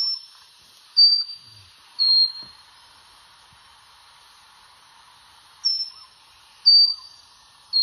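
Pygmy cupwing singing: two phrases, each of three high, thin whistled notes that step down in pitch, the notes about a second apart. The second phrase begins about five and a half seconds in. A faint steady background hiss runs underneath.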